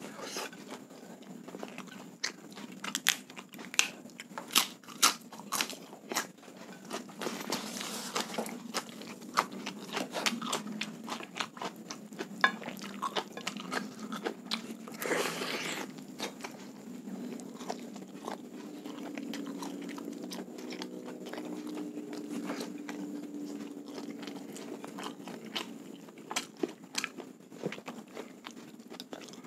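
Close-miked mouth sounds of a person eating soy-sauce chicken thigh and rice by hand: steady chewing with frequent wet clicks and smacks. There is a short hiss-like rush about halfway through.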